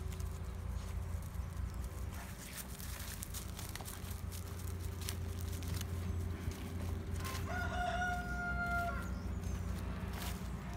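A rooster crowing once, one long call lasting about a second and a half, about three quarters of the way through, over a steady low hum and light scattered rustles.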